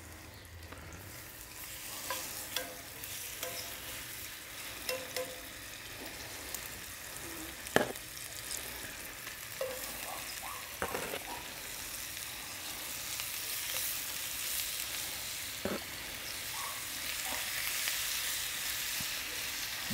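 Chicken thighs sizzling in hot canola oil in a cast iron skillet, the sizzle slowly growing louder as more pieces go into the pan. Short clicks and taps of metal tongs come now and then, the sharpest about eight seconds in.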